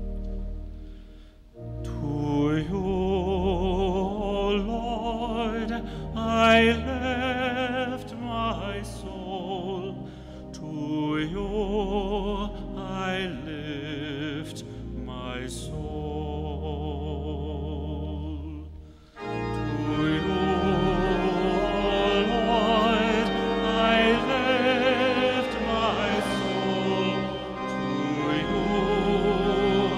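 Organ accompanying a solo cantor who sings the responsorial psalm with vibrato. About nineteen seconds in, the congregation joins the organ in the sung refrain and the sound grows fuller and louder.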